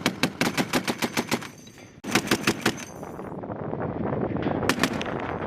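Machine gun firing in short bursts of rapid, evenly spaced shots: one burst stops about a second and a half in, another runs for under a second just after two seconds, and a brief one comes near the end.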